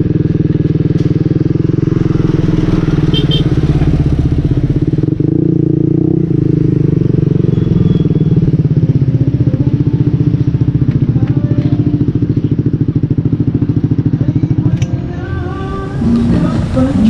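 Motorcycle running through an SC Project aftermarket exhaust with a modified elbow: a loud, steady, low pulsing exhaust note while riding. It drops off about fifteen seconds in.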